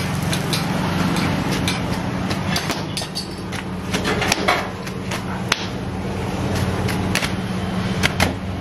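Sharp, irregular slaps and knocks: a metal spatula on a steel flat-top griddle, then hands clapping a stack of freshly cooked parottas together to fluff their layers. A steady low hum runs underneath.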